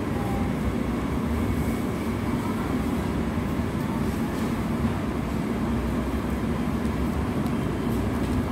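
Steady low rumble of room background noise with a faint constant hum, holding level throughout.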